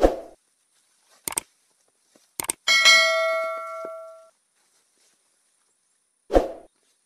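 Subscribe-button overlay sound effects: a dull thump, a couple of quick mouse-style clicks, then a bright notification-bell ding that rings out for about a second and a half, and another thump near the end.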